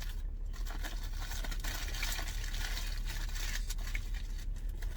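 A person chewing a mouthful of sandwich close to the microphone: a steady run of small wet clicks and crackles over a low steady hum.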